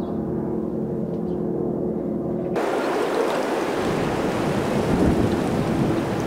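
A steady electrical hum inside an old electric mining locomotive's cab, cutting off suddenly about two and a half seconds in to strong wind gusting and buffeting the microphone.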